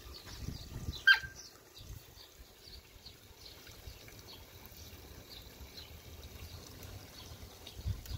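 Water trickling from a garden hose into a muddy puddle, with faint bird chirps throughout and one short, sharp squeak about a second in.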